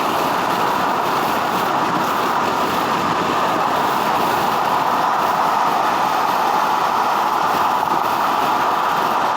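Steady, loud freeway road noise: the even rush of tyres and traffic on a busy highway.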